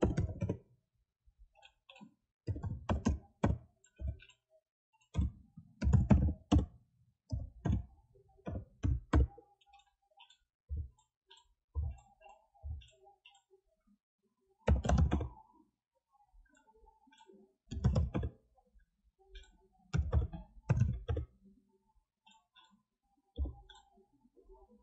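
Computer keyboard typing and mouse clicks in irregular bursts separated by short pauses, with low thuds among the keystrokes.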